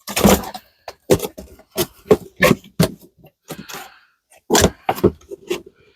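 Hard parts and packaging being handled and set down: a string of about a dozen irregular sharp knocks and clatters, with a brief rustle of packaging between them.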